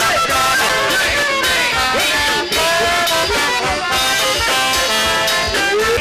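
A band playing, with trombone and trumpet horn lines and sliding held notes over a steady beat.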